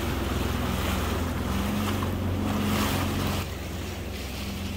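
Sea-Doo Fish Pro personal watercraft idling with a steady low hum, under wind buffeting the microphone and waves washing around the hull. The level drops a little about three and a half seconds in.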